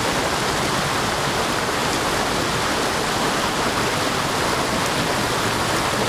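A rocky mountain creek rushing steadily over a riffle of boulders, a continuous even water noise with no breaks.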